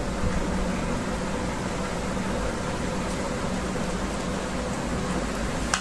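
Steady background hiss with a faint low hum, and a single short click near the end.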